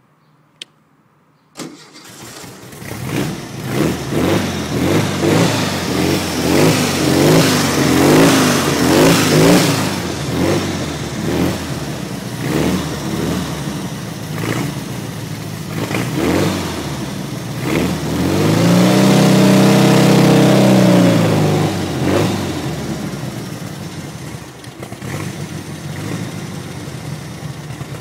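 Sand rail dune buggy's engine starting: a click, then it catches about a second and a half in. It runs with repeated blips of the throttle, is held at higher revs for a few seconds in the second half, then drops back to a lower run.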